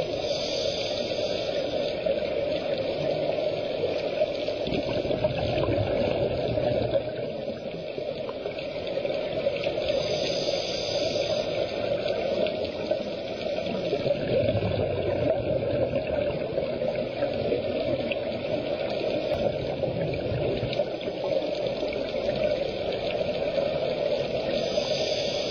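Underwater scuba breathing through a regulator: a short hiss of inhalation about every ten seconds, with bubbly exhalations between, over a steady underwater rush.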